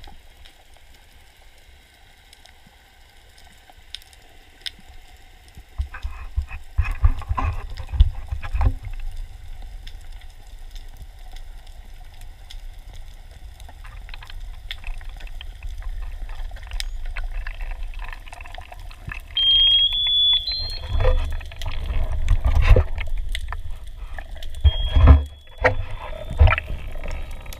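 Underwater sound through a camera housing during a freedive: a low rumble of water moving over the housing that swells heavily at times, with fine clicks scattered throughout. In the second half come a few short high-pitched tones.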